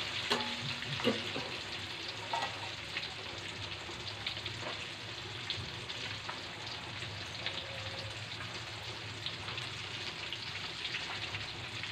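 Flour-coated chicken pieces deep-frying in hot oil in a steel wok: a steady sizzle with small crackles. A few clicks of metal tongs against the wok come in the first couple of seconds.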